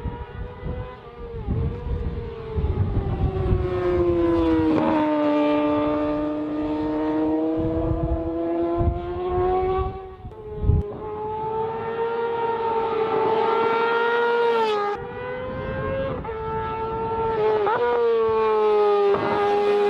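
Yamaha motorcycle engine held at high revs, its pitch slowly sinking and rising, with brief sudden drops and catches a few times along the way.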